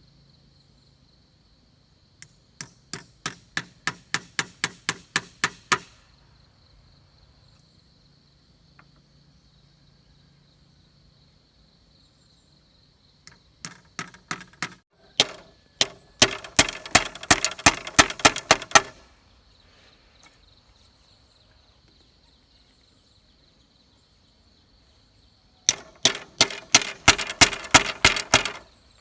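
Three runs of rapid, evenly spaced chopping strikes, about four a second, each run growing louder as it goes, with quiet gaps between the runs. A faint steady high insect buzz runs underneath.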